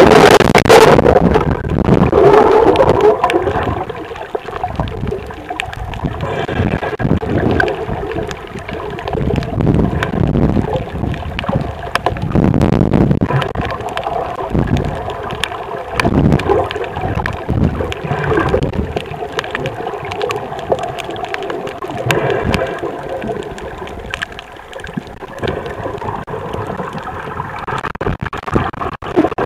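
Underwater bubbling and gurgling, rising and falling in irregular swells, heard muffled through the water; loudest in the first two seconds.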